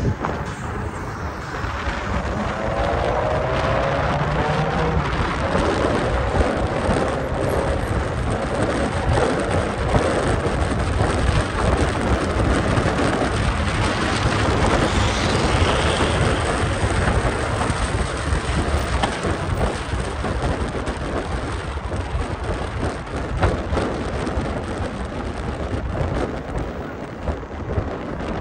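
Steady road and wind noise from a car travelling at road speed, with a fluttering low rumble of wind buffeting the microphone.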